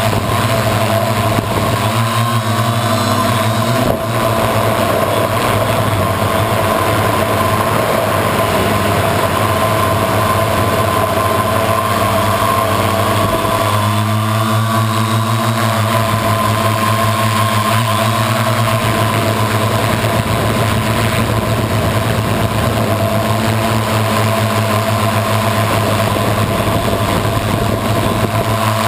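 Multirotor drone's electric motors and propellers humming steadily in flight, heard close from the onboard camera, with small shifts in pitch.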